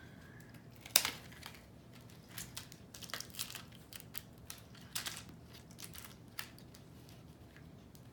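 Plastic and cardboard toy packaging crinkling and clicking as small toy pieces are worked loose from it, with one sharp snap about a second in.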